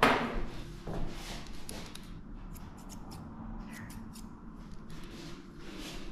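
Grooming scissors snipping a small dog's clipped coat: a string of short, sharp snips through the later part, after a brief rustle of handling at the start.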